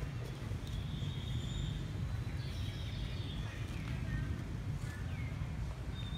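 Outdoor ambience: a steady low rumble with a few faint bird calls, short whistles and falling chirps scattered through it.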